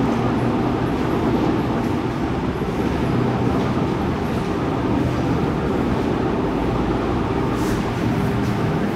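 A steady, even rumble and hum of machinery or traffic noise, with no rise or break.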